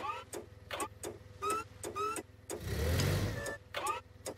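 Cartoon forklift sound effects: a quick run of short rising squeaks and clicks, then the engine revs up briefly about two and a half seconds in.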